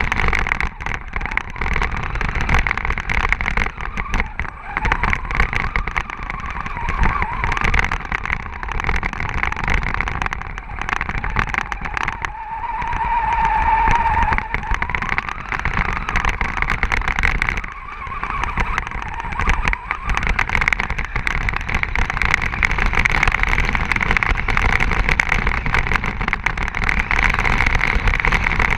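A radio-controlled car driving through snow, heard from a camera on board: its motor runs and whines, rising and falling with the throttle, over a steady rough rumble of tyres and chassis.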